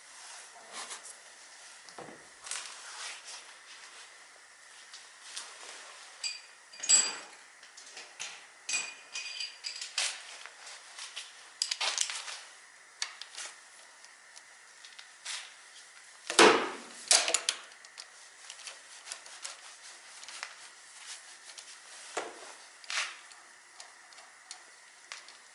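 Hand tools and metal parts clinking and knocking at irregular intervals, a few with a short metallic ring, with the loudest knock about sixteen seconds in.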